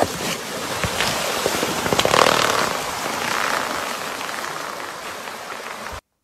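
Water gushing out of a split inflatable pool in a steady rushing hiss, with a sharp knock about two seconds in. The sound cuts off abruptly near the end.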